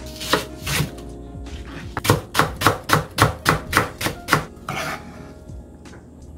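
Kitchen knife chopping a Korean green onion on a cutting board: two single cuts, then a quick, even run of about ten chops, roughly four a second, followed by a brief scrape near the end.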